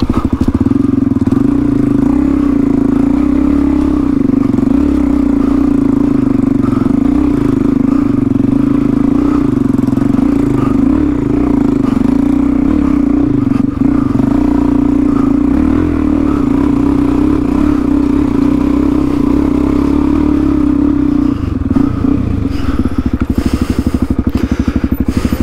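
Single-cylinder four-stroke dirt bike engine running at steady revs. About 21 seconds in, the steady note drops away and the engine settles into an even pulsing at lower revs.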